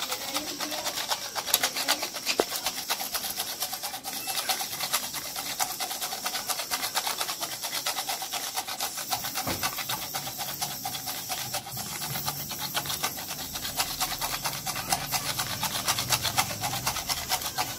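Handheld sieve being shaken and tapped to sift a powdered sugar and cornflour mix, making a fast, steady, scratchy rasping rhythm.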